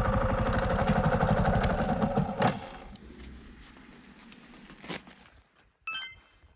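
Suzuki GrassTracker BigBoy's single-cylinder four-stroke engine idling with an even beat, then shut off with a click about two and a half seconds in, the engine sound dying away.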